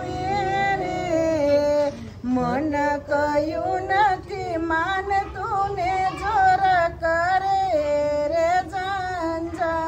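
A woman singing solo, unaccompanied, holding long notes that bend and slide in pitch.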